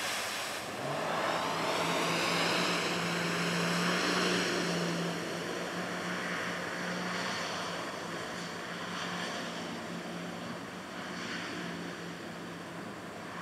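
Challenger 230 speedboat running fast through turns: its engine note rises in pitch about a second in and then holds steady over the rush of spray and wake, slowly fading as the boat moves off.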